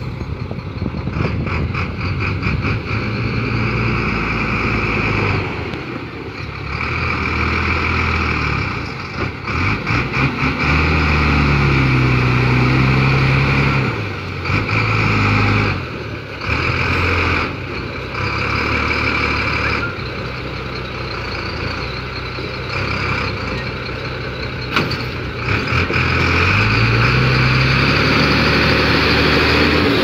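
Dongfeng dump truck's diesel engine revving to drive the hydraulic tipping hoist with the bed raised; the revs climb sharply twice, hold high, and fall back in between.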